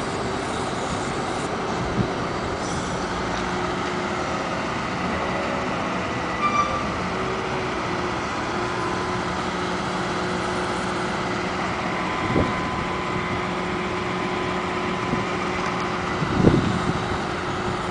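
Construction-site machinery running: a steady engine drone with a constant hum, broken by a few short knocks, the loudest near the end.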